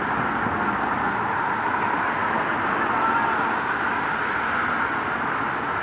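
Steady rain on a street with road traffic running through it, an even wash of rain and vehicle noise with no single event standing out.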